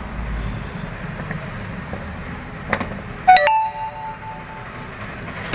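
A faint click, then a sharp metallic clink that rings on for about a second: a metal part of the e-rickshaw starter motor's solenoid being knocked or set down during disassembly.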